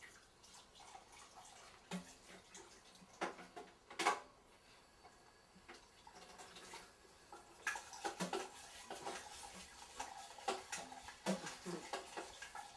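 Scattered clinks and clatter of a metal spoon against dishes while someone eats, with light rustling; the clatter gets busier in the second half.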